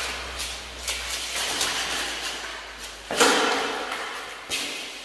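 Mail shirts jingling and armour clattering as two armoured fencers grapple, with a loud clash about three seconds in and another sharp knock near the end.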